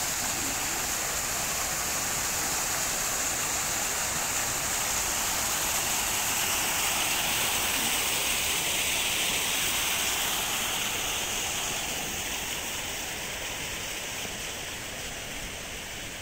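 Water pouring in sheets from slot fountains in a stone wall and splashing into a shallow pool: a steady rushing splash that fades over the last few seconds.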